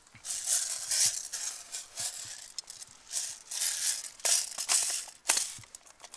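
Dry leaves and gear rustling and crunching in repeated bursts as a player moves on the ground after a fall and handles a rifle magazine, with two sharp clicks about four and five seconds in.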